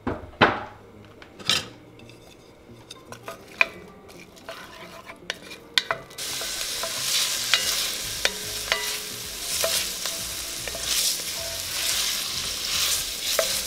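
Diced onion and garlic sautéing in oil in an enameled pot, stirred with a wooden spatula. For the first few seconds there are only scattered knocks and scrapes of the spatula against the pot; about six seconds in a steady sizzle starts suddenly and runs on under the stirring scrapes.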